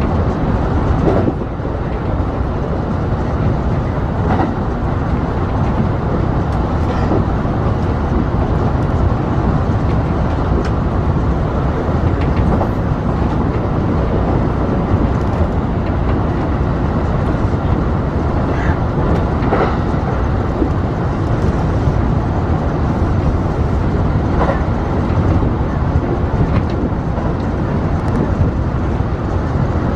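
Kintetsu electric express train running at speed, heard from inside behind the driver's cab: a steady rumble of wheels on rails and running gear, with a few faint clicks here and there.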